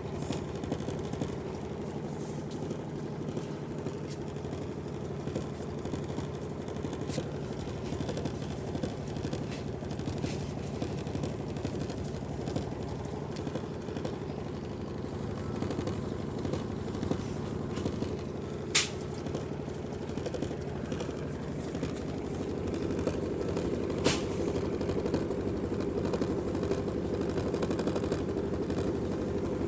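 Washing machine running with a steady motor hum that grows a little louder in the last third. Three sharp clicks stand out, the loudest about two-thirds of the way through.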